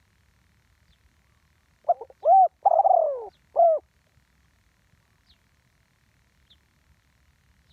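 Spotted dove cooing: a single phrase of four notes about two seconds in, the third note the longest and falling in pitch.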